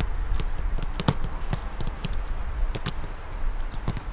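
Footballs being kicked and passed on a grass pitch: a scatter of sharp, irregular thuds, the loudest about a second in, over a steady low rumble.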